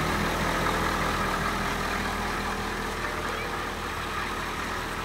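Yellow school bus engine idling with a steady low hum.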